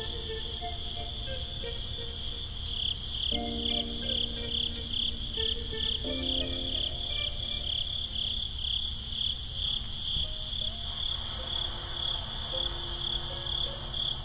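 Crickets chirping, a steady high trill pulsing about twice a second, over soft background music with sustained chords.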